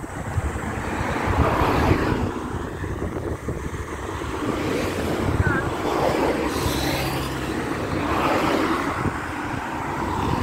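Wind buffeting the microphone in a steady low rumble, with cars going by on the road, their noise swelling and fading a few times.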